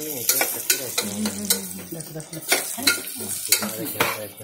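A spoon stirring and scraping onions and red chili powder frying in oil in a pressure cooker pot, with repeated sharp scrapes and clicks against the pot over the sizzle of the oil.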